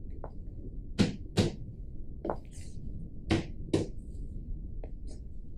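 Sharp knocks on a blue footlocker-style trunk as it is shown to be solid: two quick pairs of knocks about two seconds apart, with a few lighter taps between.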